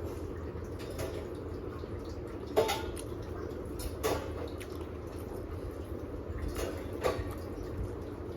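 Eating sounds from a meal taken by hand from a plate: a handful of short, sharp clicks and taps of food and dish handling, the loudest about two and a half seconds in, over a steady low hum.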